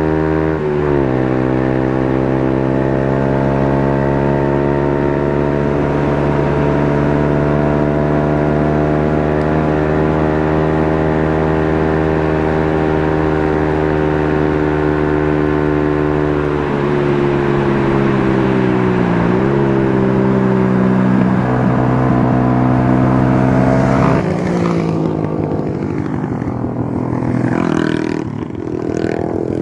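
Motorcycle engine running at a steady speed while riding, its pitch dipping briefly and recovering about two-thirds of the way through, with rushing noise joining near the end.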